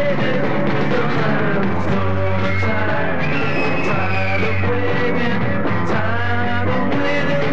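1960s British rock band playing a song: a male lead vocal over electric guitars, bass guitar and drums.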